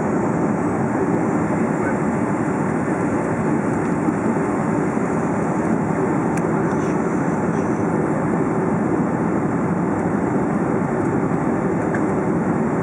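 Steady cabin noise inside a Boeing 757 on final approach with its flaps extended: a low, even roar of the engines and rushing air, heard through the fuselage.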